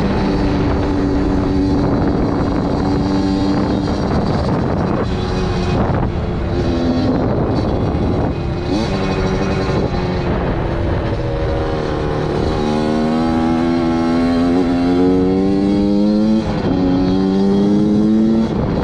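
Suzuki RM85's 85cc two-stroke single-cylinder engine revving. Its pitch climbs and falls repeatedly, with a long rise that drops off suddenly about three-quarters of the way through and then climbs again. The freshly rebuilt engine is running properly, its coolant-into-cylinder fault machined out.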